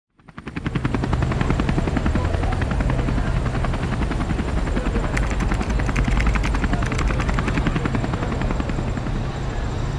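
Helicopter with the rapid, even beat of its rotor blades over a low engine drone. It fades in over the first second, then holds steady.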